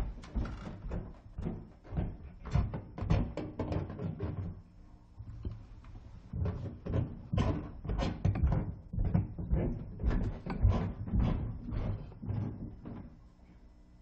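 Footsteps going up and down outdoor neighbourhood stairs, about two to three steps a second. The steps break off for about two seconds roughly five seconds in, then resume and stop about a second before the end.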